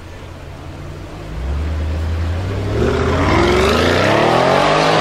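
Audi RS 6 Avant's twin-turbo V8 pulling away at low revs, growing louder about a second and a half in. It then accelerates hard with a steadily rising engine note.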